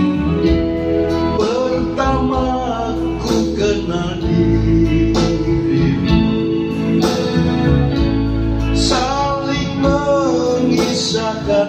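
Electronic keyboard accompaniment of a slow pop ballad, playing a melodic lead line over held chords.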